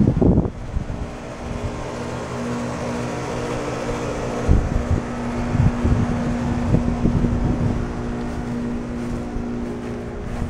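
A steady mechanical hum from a motor running, with wind rumbling on the microphone and several bumps from handling partway through.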